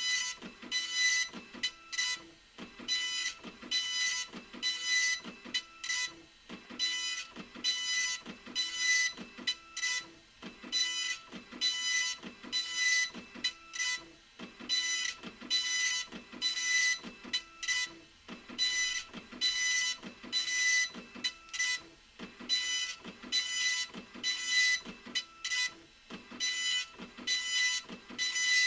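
Epson LQ2550 24-pin dot-matrix printer printing, the print head making short repeated passes across the line, about one a second, with brief pauses between them.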